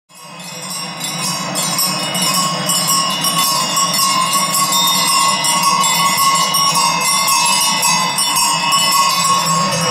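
Many cowbells and other livestock bells clanging together on a herd being driven along a road. The sound fades in over the first couple of seconds.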